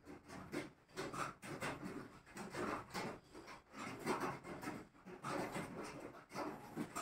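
A pen scratching on lined notebook paper in short, irregular strokes as it draws a wavy, looping line.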